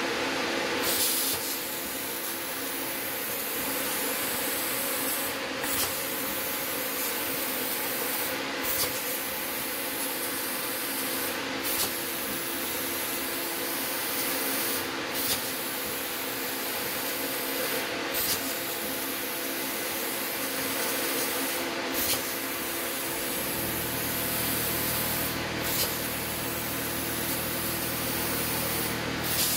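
CNC plasma cutting table running: a steady hiss of the plasma torch's air over a machine hum, breaking off briefly about every three seconds. A low rumble joins near the end.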